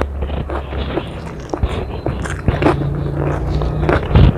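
Close-miked chewing of a mouthful of food, with irregular wet mouth clicks, then a sharp crunchy bite into a potato chip about four seconds in.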